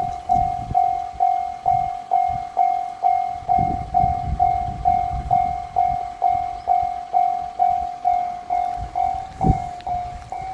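Japanese level-crossing warning bell ringing its steady 'kan-kan', a single-pitched ding repeating about twice a second. Underneath it are low rumbling and a few sharp thumps, the loudest near the end, from a train on the line.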